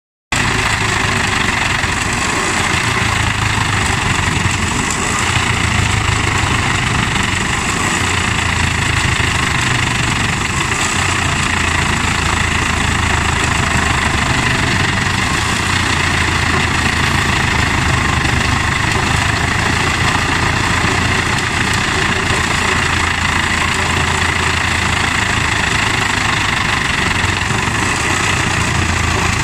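Eschlböck Biber 84 tractor-driven wood chipper chipping scrap planks and timber, run by a CLAAS Xerion 4200 tractor working under load. It makes a loud, steady, unbroken drone of engine and chipper, with chips blowing out of the discharge spout.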